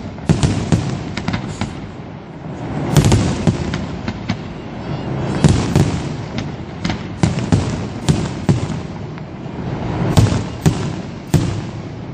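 Aerial firework shells bursting in quick, irregular succession: sharp bangs, at times two or three a second, over a continuous low rumble.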